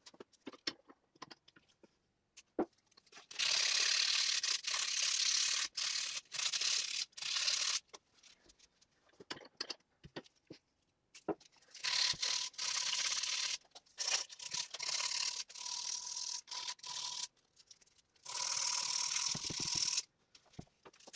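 Hand sanding of the steel jaw of an antique monkey wrench clamped in a bench vise: rasping abrasive rubbing in three bouts of a few seconds each, with scattered clicks and knocks in between.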